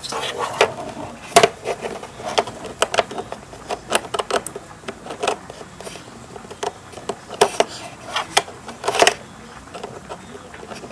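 Irregular clicks, knocks and rattles from hands handling an HDMI cable, sometimes several in quick succession.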